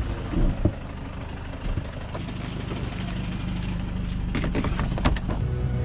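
Van engine running with a steady low hum, with a few sharp knocks and clatters of gear in the second half.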